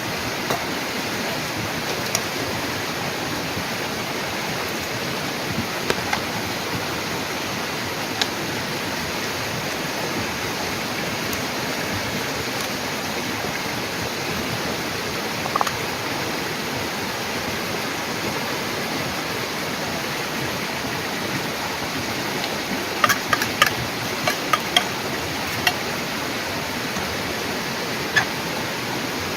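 Steady, even rushing noise like flowing water, with a quick cluster of short sharp ticks or chirps near the end.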